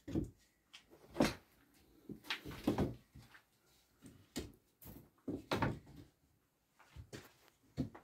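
A dozen or so short knocks and thumps at uneven intervals.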